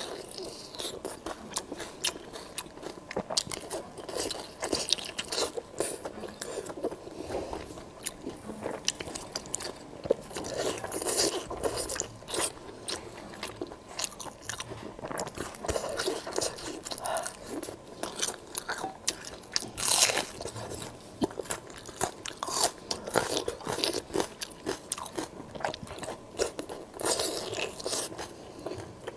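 Close-miked eating sounds: a person biting into and chewing pieces of red-sauced food, with a steady run of irregular short clicks and smacks, the loudest bite about 20 seconds in.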